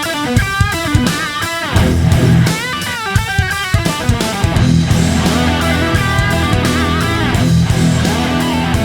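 Background music: electric guitar playing a melodic line over bass and a steady beat.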